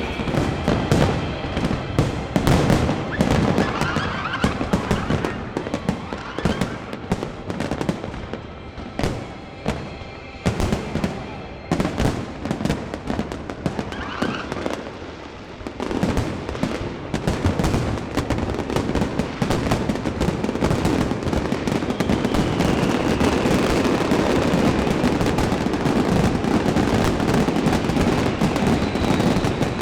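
Fireworks display: many sharp bangs of shells bursting in quick succession, then from about halfway a dense, continuous crackling and popping with the bursts running together.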